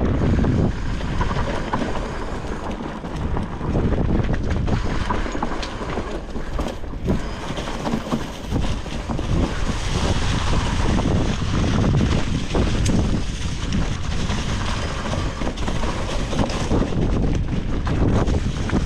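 Titanium hardtail mountain bike descending dirt singletrack: tyres rolling over dirt and fallen leaves, the bike rattling and knocking over bumps, with wind buffeting the microphone.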